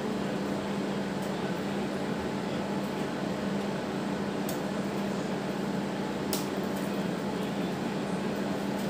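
A steady low machine hum, with two faint sharp clicks about four and a half and six and a half seconds in as chicken pieces are turned with metal tongs on a wire grill rack.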